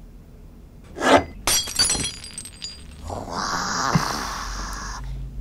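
A ceramic mug falling and smashing: a thump about a second in, then shattering with ringing clinks as the pieces scatter. A steady noisy sound lasting about two seconds follows.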